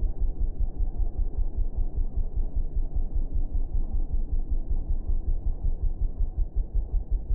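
Sport ATV engine running as the quad is ridden along a dirt trail, heard as a low, muffled, regular throbbing.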